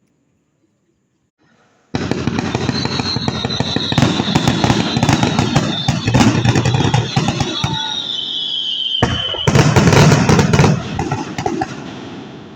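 Fireworks going off in a dense barrage of bangs and crackling that starts suddenly about two seconds in, with a high whistle slowly falling in pitch over several seconds. A second loud burst comes about nine seconds in, then the sound fades out.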